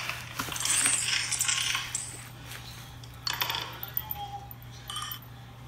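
Light metallic clinking and jingling, loudest in the first two seconds, with a second burst a little past the middle.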